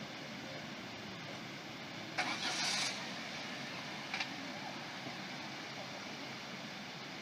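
Steady outdoor background noise. About two seconds in, a loud hiss starts suddenly and lasts under a second. A brief second hiss follows about two seconds later.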